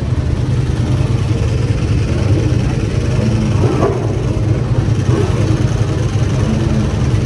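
Ducati 998 RS superbike's 998 cc L-twin engine idling steadily.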